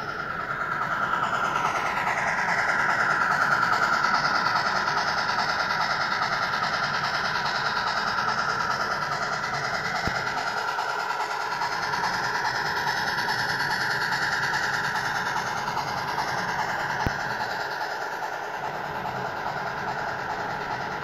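HOn3 model train running along the layout with a steady rolling noise, led by a Blackstone C-19 steam locomotive pulling freight cars and a combine; the sound builds over the first couple of seconds and then holds steady.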